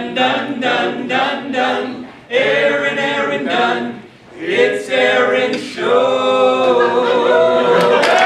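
A small amateur chorus singing a cappella: short, clipped sung syllables in a rhythm, then a long held final chord. Clapping breaks in just at the end.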